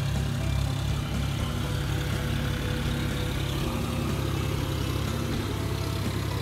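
John Deere 5045 D tractor's three-cylinder diesel engine running steadily under load while the tractor pulls a rotavator through flooded paddy mud.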